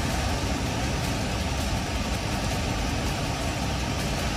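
Road traffic moving through a flooded street in heavy rain: vehicle engines under a steady wash of rain and water noise.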